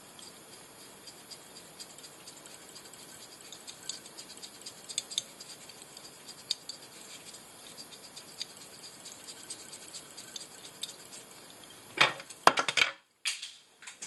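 Faint scratching and small ticks of fly-tying thread being wound onto a hook shank over copper wire. Near the end come a few loud sharp clicks, then the sound cuts out abruptly for a moment.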